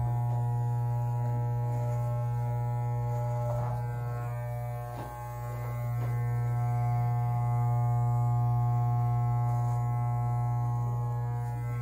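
Electric beard trimmer buzzing steadily, its level dipping briefly about five seconds in.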